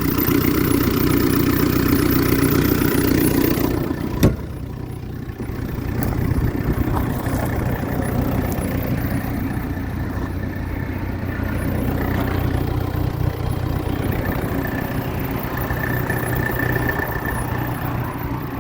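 Bobcat E26 mini excavator's diesel engine idling steadily, sounding healthy. It is louder for the first four seconds, and a single sharp knock comes about four seconds in.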